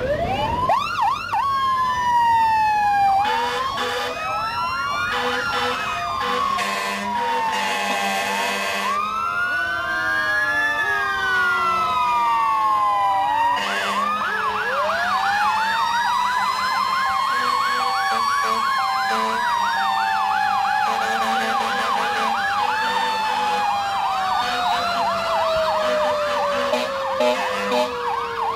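Many fire engines sounding their sirens at once: overlapping wails and fast yelps rising and falling in pitch. Horn blasts come in about six seconds in and again near the middle. Toward the end one siren rises slowly, then falls away steadily.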